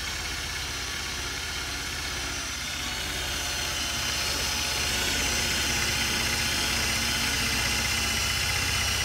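Cordless drill spinning an eraser wheel against a car door, grinding off old adhesive: a steady motor hum under a rough scrubbing hiss, growing a little louder about three seconds in.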